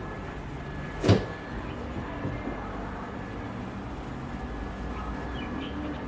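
A single sharp knock about a second in, over a steady low rumble of background noise.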